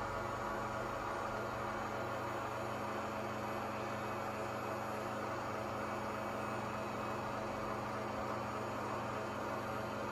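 Steady, even hum from an O gauge model railroad layout in operation.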